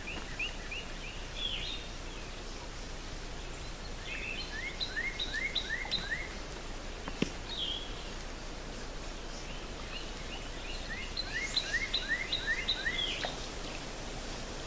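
A songbird singing two phrases of quick, repeated rising notes, a few seconds apart, over steady outdoor background noise. A single sharp click about seven seconds in.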